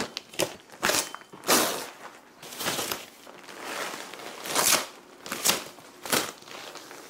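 Clear plastic furniture wrap being pulled and crinkled off a couch, in irregular rustling surges about half a dozen times.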